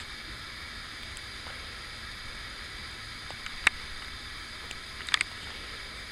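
Quiet, steady outdoor background noise with a low rumble, broken by a sharp click about three and a half seconds in and a quick pair of clicks about a second and a half later.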